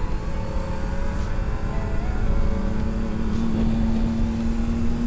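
Superbike engine running steadily at cruising speed, its pitch rising slowly in the second half as it pulls harder, over heavy wind rumble on the rider's microphone.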